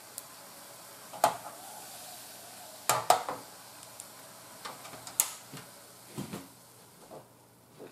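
Sweet soy sauce with sugar bubbling at a boil in an aluminium pan, broken by several sharp taps and knocks; the bubbling dies down near the end.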